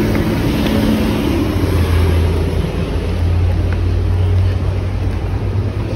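Inside a moving bus: a steady low engine drone with road noise.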